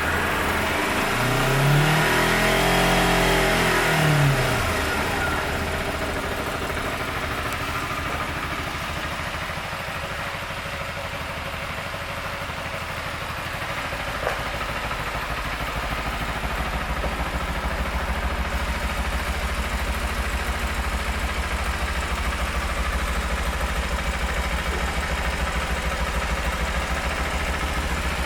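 2008 Kawasaki Ninja 250R's parallel-twin engine running just after starting. It is revved once in the first few seconds, rising and falling in pitch, then settles to a steady idle with an even low pulse that grows stronger about halfway through.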